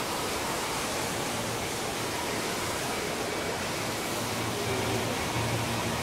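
Steady rush of water falling from water-slide outlets and an artificial rock waterfall into the pools of an indoor water park.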